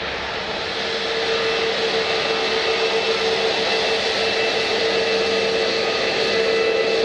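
Jet airliner engines: a steady rushing noise with a held whine, slowly growing louder.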